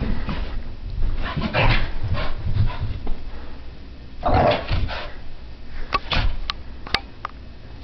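Brittany spaniel puppy making bursts of dog sounds, the loudest about four seconds in, followed by a few sharp clicks near the end.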